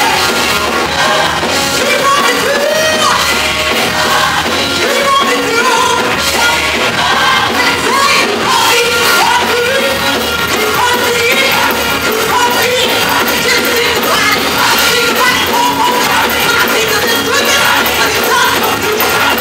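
Women's gospel mass choir singing, with a lead singer on a handheld microphone; loud and continuous.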